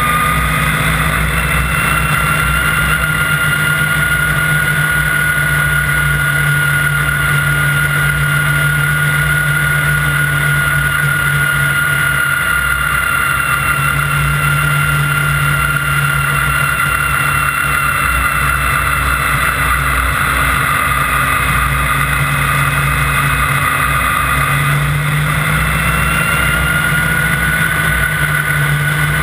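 Snowmobile engine running at high, steady speed under way, its pitch holding with small rises and dips, over a low rumble.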